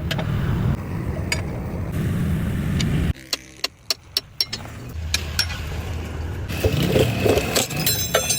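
A vehicle engine running with a steady low rumble. About three seconds in the sound cuts away to a run of sharp knocks and clicks. Then the engine rumble returns, with more clatter near the end.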